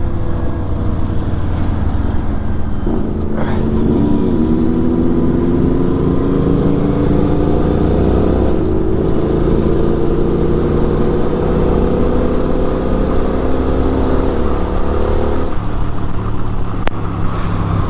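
Motorcycle engines and wind rush while riding on a highway. From about three seconds in, one engine's note climbs slowly and steadily for about twelve seconds as it accelerates, then falls away.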